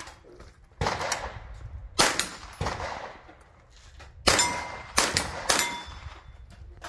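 A .22 rimfire rifle firing a string of about six shots at steel plates, some of them followed by the ring of a struck plate. There is a pause of over a second midway while the shooter moves to the second box.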